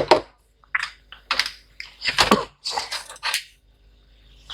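Laptop plastic case parts and screws being handled during reassembly: a string of short clicks, taps and rattles over about three seconds, then it falls quiet near the end.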